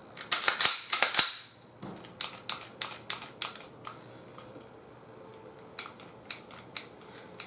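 Clicks and clacks of a Glock 19 Gen 4 pistol being worked by hand. A cluster of loud clicks in the first second or so comes as the slide is handled, then a run of lighter clicks at about four a second, and a few more near the end as the trigger is pressed. The trigger does nothing, which the owner puts down to the over-milled plunger channel keeping the slide from working properly.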